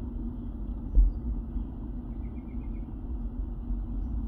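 Low, uneven rumble of wind buffeting the microphone, with one louder bump about a second in.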